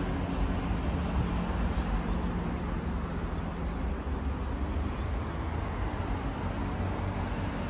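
Buses running with a steady low engine hum amid road traffic, as a single-deck route bus approaches. The hum eases in the middle and returns near the end.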